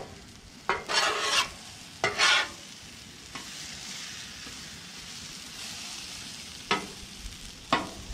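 Food sizzling steadily on a Blackstone flat-top griddle, with a metal utensil scraping and clacking against the griddle plate several times: a cluster of scrapes in the first two and a half seconds and two more near the end.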